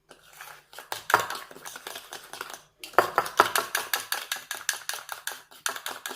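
Spoon clicking rapidly and steadily against the side of a cup while instant coffee and sugar are beaten by hand, several strokes a second, with brief pauses just after the start and about three seconds in. The mixture is at the stage of turning pale, butterscotch-coloured and thickening.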